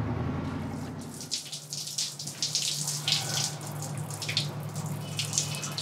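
Shower running: water spraying from a handheld showerhead and splashing in an uneven hiss, with a low steady tone underneath.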